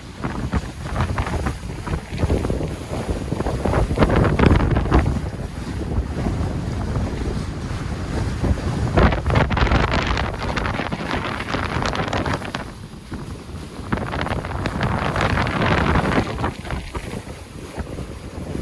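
Wind buffeting the microphone over water rushing past the hulls of an Excess 11 catamaran under sail, swelling and easing in gusts.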